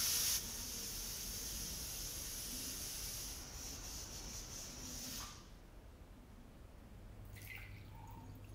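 A steady hiss runs for about five seconds, dropping in level half a second in and cutting off at about five seconds. Near the end, water is poured from a jug into a drinking glass.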